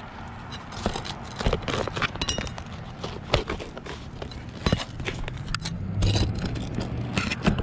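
Irregular scraping, rustling and clicking of asphalt shingles and the old metal box vent flange being handled and worked loose, with a few sharper knocks of a flat bar against them.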